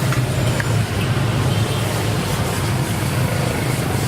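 Refrigeration vacuum pump running with a steady low hum, drawing down the refrigerator's sealed system.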